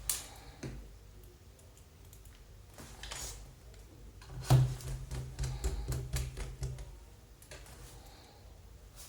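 Small clicks and light knocks of hands handling Mac parts during a RAM upgrade: a sharp click at the start and another just after, a scrape about three seconds in, then a louder knock about four and a half seconds in followed by a couple of seconds of low rubbing.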